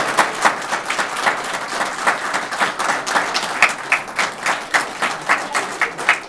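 Crowd of people applauding: dense, steady hand-clapping.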